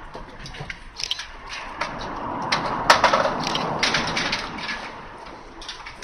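Clanks and knocks of an aluminium stepladder being picked up and moved, with a louder stretch of rattling in the middle and one sharp knock about three seconds in.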